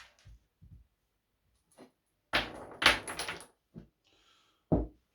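Knocks and clatter of parts and tools being handled on a workbench during disassembly of a nitro RC truck: a few light clicks, a louder rattling cluster of knocks in the middle, and one single thump near the end.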